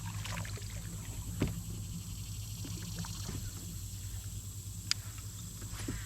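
Water trickling around a kayak, with scattered small knocks and clicks from gear on the boat over a steady low hum.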